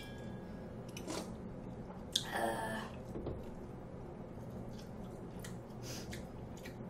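Soft close-miked chewing with a few faint clicks and small mouth sounds over a steady low hum, with one slightly louder mouth sound a little over two seconds in.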